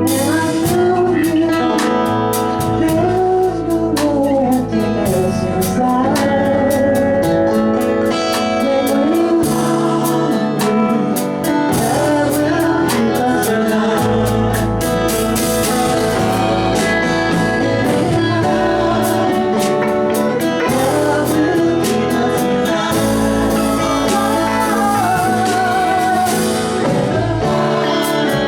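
A band playing a song: a lead vocal with vibrato over guitar and a steady drum beat.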